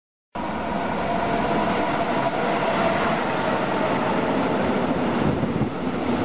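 Freight train of container wagons passing close at speed, a steady loud rumble and rush of wheels and wagons. The sound cuts in suddenly at the start.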